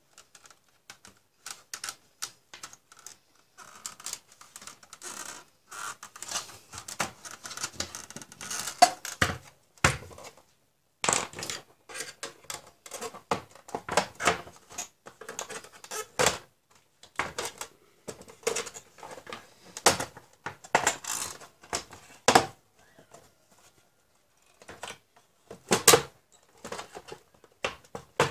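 Irregular plastic clicks, taps and knocks as an HP 1740 LCD monitor's casing is handled and turned over on a workbench, with a few louder knocks among them.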